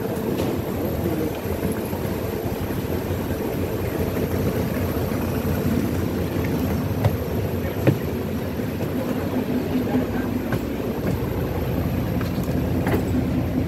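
Steady mechanical drone with a low hum, with a sharp click about eight seconds in.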